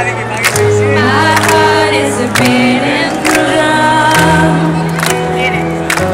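Live trance music played over a concert sound system: a female vocal sings over sustained synth bass notes, with a drum hit about once a second.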